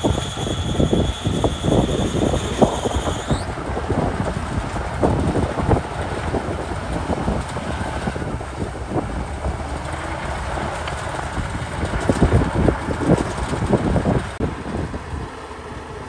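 Komatsu D61PX crawler bulldozer's diesel engine working under load as it pushes sand, with irregular clanking and knocking from the steel tracks. A high whine holds steady, then rises and cuts off about three seconds in.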